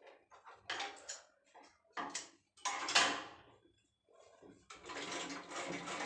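Domestic sewing machine stopped while the cloth is set under the needle: a few short rustles and clicks of cloth and machine parts. Near the end the machine starts stitching again with a steady running sound.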